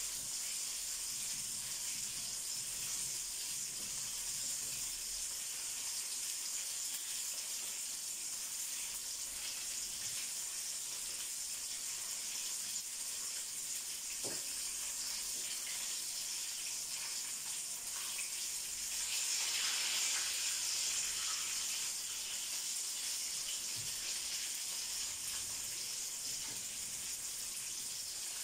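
Flour-coated chicken strips deep-frying in hot oil in a frying pan: a steady sizzling hiss that swells a little louder about two-thirds of the way in.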